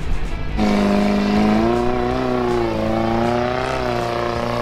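Small off-road pickup's engine revving hard under load as it climbs a steep, rutted dirt trail. The strained note comes in about half a second in, rising and wavering as the truck fights for grip.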